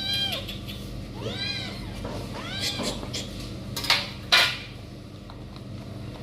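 A domestic cat meowing three times, each call rising and then falling in pitch. About four seconds in come two short, sharp noisy sounds, the second the loudest.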